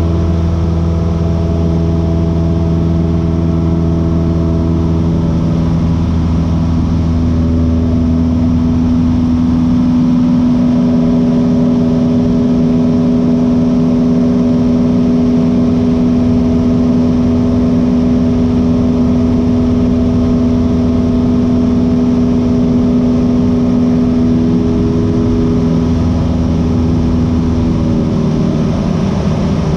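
Light aircraft's piston engine and propeller running steadily, heard inside the cabin. The note shifts about eight seconds in and again near the end, as power and airspeed change during aerobatic manoeuvres.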